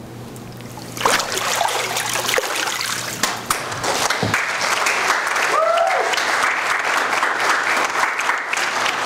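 Church congregation applauding, the clapping starting suddenly about a second in and continuing steadily.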